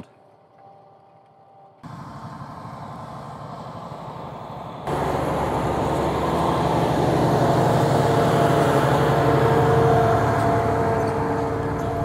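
Fendt 942 Vario tractor's six-cylinder diesel engine working under load while pulling a ten-furrow plough past close by. The sound is faint at first, steps up about two seconds in and again about five seconds in, builds to its loudest about ten seconds in, then eases off slightly.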